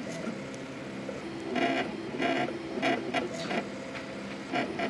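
Stepper motors of a small pen plotter built from DVD/CD drive mechanisms, buzzing and whining as they drive the pen through the strokes of the lettering. Under a steady hum, a string of short, louder stepping bursts comes about every half second to second as the head changes direction.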